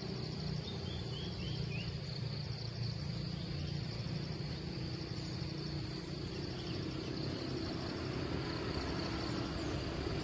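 Steady outdoor ambience: insects buzzing with an even high drone over a low steady rumble, with a few faint short chirps about a second in.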